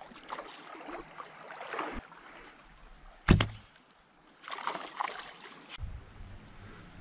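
A recurve bow shot about halfway through: one sharp, loud snap of the string as a bowfishing arrow is loosed. Softer water splashing and sloshing around the boat comes before and after it.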